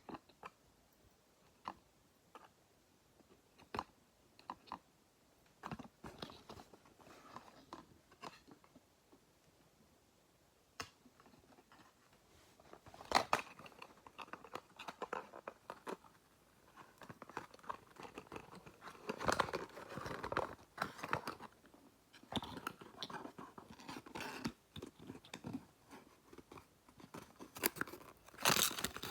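Packaging being handled and torn open: scattered taps and clicks at first, then a busier stretch of crinkling, crunching and tearing with a few louder rips.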